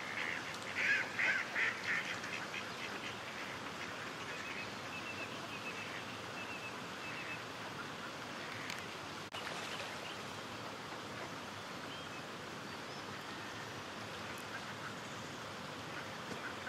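Mallard ducks quacking: a quick run of about six loud quacks in the first two seconds, then only faint, short high calls repeating for a few seconds over a steady background hiss.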